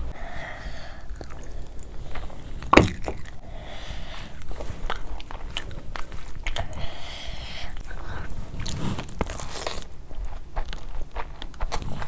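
Close-miked eating: wet chewing and lip smacks as mouthfuls of fried rice are eaten by hand, with many quick sticky clicks and one louder knock about three seconds in.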